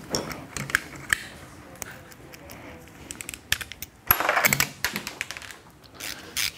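Socket ratchet clicking and small metal tools and parts clinking on a bench while bolts are worked off exhaust parts, with a denser run of clicks about four seconds in.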